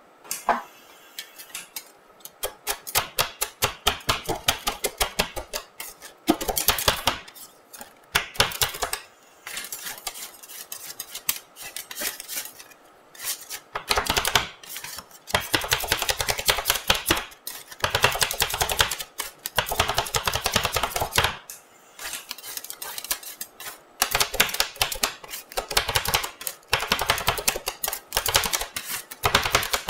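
Two metal spatulas rapidly chopping and scraping a milk and chocolate-biscuit mixture on a steel cold plate, the mixing stage of rolled ice cream. It is heard as fast runs of metallic taps, bursts of a second or more with short pauses between.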